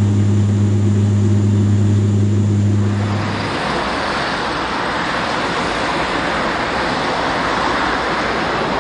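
Steady low drone of a propeller airliner heard inside the cabin in flight. About three seconds in it cuts off abruptly and is replaced by a steady, even rushing noise.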